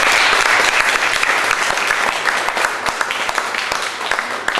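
Audience applauding, loud at first, then thinning out into scattered separate claps toward the end.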